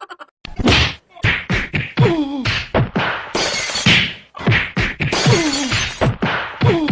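A rapid string of comedy sound effects: sharp whacks and crash-like bursts mixed with several short tones that slide down in pitch.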